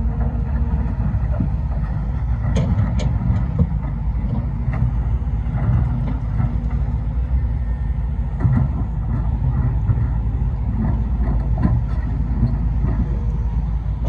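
Steady low vehicle rumble, as from a vehicle driving along rough ground, with scattered knocks and clatters throughout.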